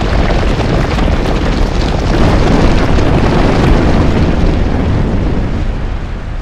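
Loud, continuous deep rumbling with crackling on top, like rock and earth breaking up as a rock creature bursts out of the ground; it eases off near the end.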